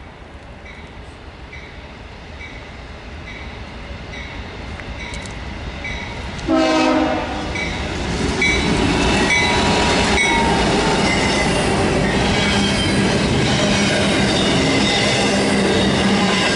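A train approaching and passing close. A grade-crossing bell dings about twice a second as the rumble grows, a short horn blast sounds about six seconds in, then the locomotive goes by with loud engine and wheel noise.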